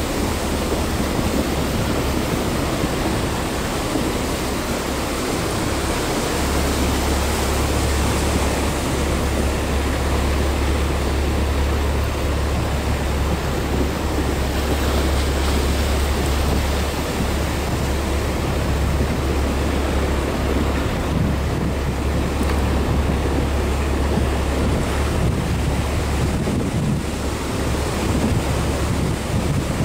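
Car wading slowly through deep floodwater: a steady rush and swash of water around the wheels over a low, even drone.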